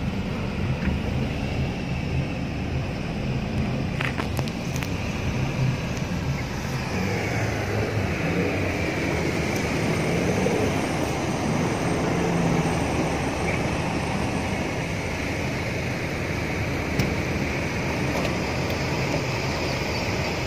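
Car engine running at low speed, heard inside the cabin, with the steady rush and swish of floodwater against the car as it wades through a flooded road.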